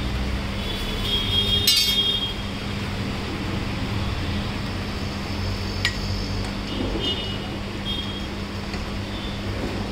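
Steel spatula scraping and chopping a potato patty on a flat iron griddle (tawa), with a ringing metal clink about two seconds in and lighter clinks later, over a steady background hum.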